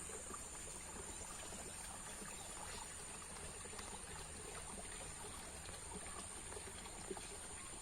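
Faint, steady flow of water in a small stream, with a thin, steady high-pitched tone over it.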